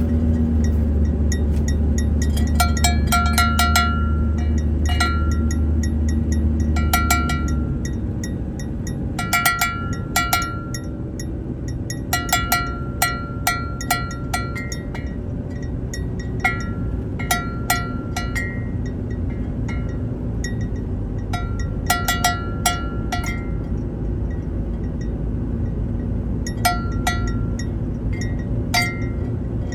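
A small bell hanging in a moving vehicle, jingling in irregular clusters of rings as it is shaken by the ride. Under it runs a steady low rumble of engine and road noise, which is heavier for the first several seconds.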